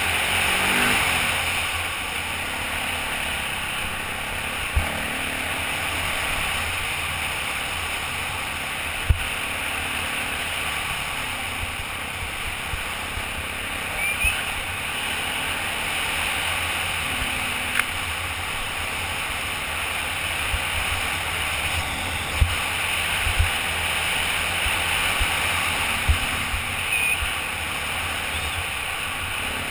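Off-road motorcycle running at speed on a rough dirt trail, its engine drone mixed with wind rushing over the helmet microphone. Several sharp knocks from bumps in the trail stand out above the steady noise.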